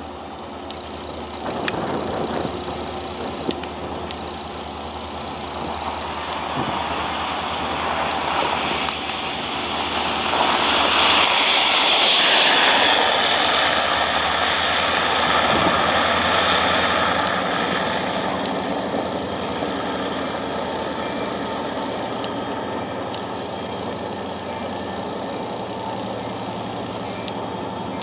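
Diesel-electric freight locomotive running as it approaches slowly along a street track, its engine a steady drone. About ten seconds in, car tyres swish past close by on the slushy road, the loudest sound, fading away after a few seconds.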